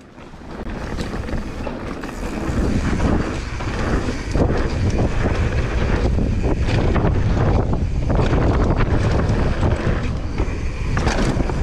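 Wind buffeting the microphone and a mountain bike rolling fast down a rough dirt trail, with tyre noise and scattered knocks and rattles from the bike. The noise builds over the first two to three seconds as the bike picks up speed, then holds loud.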